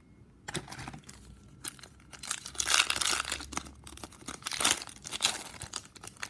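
A hockey card pack's wrapper being torn open and crinkled by hand, loudest around the middle.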